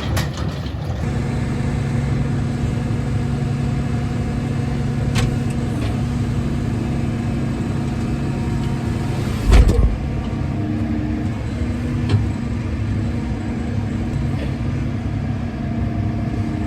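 Tractor engine running steadily under load, with a loud low thump about ten seconds in and a few fainter clicks.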